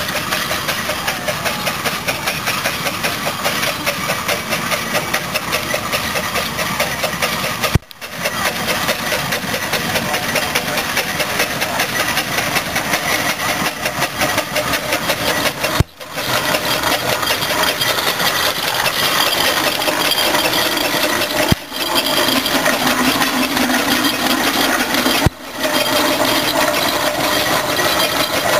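Steam traction engines on the move, a steady fast beat of the engine working with the clank and rattle of the gearing and iron wheels. The sound cuts off briefly four times.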